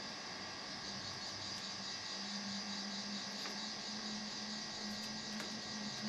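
Steady electrical hum and high hiss of workshop background noise, the hum a little stronger from about two seconds in, with a few faint ticks as a charging cable is handled.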